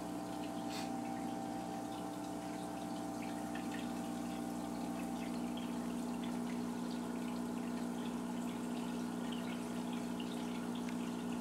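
Aquarium pump humming steadily, with water trickling and light dripping.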